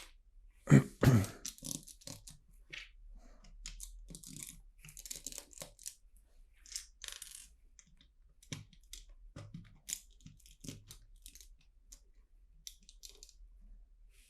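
Loose LEGO bricks being handled and rummaged through: a string of small plastic clicks and rustles, with two louder knocks about a second in.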